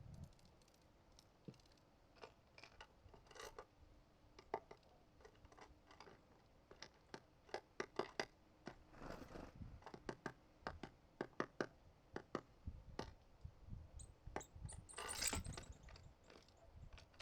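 Small birds at a feeder pecking and cracking seeds: faint, irregular clicks and scratches on the feeder, with a brief louder rustle about fifteen seconds in.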